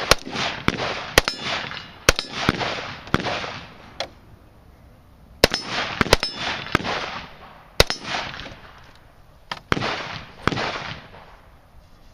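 Rifle fire in quick strings: about a dozen shots, each with a rolling echo, grouped with short pauses between them about four and eight seconds in.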